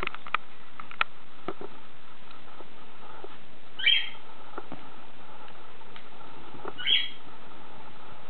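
Löwchen puppies squeaking: two short, high whimpers about three seconds apart, each dropping a little in pitch, with a few light taps and clicks in between.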